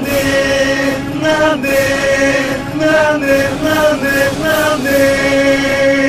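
Music: a song with a singing voice holding long notes over light percussion.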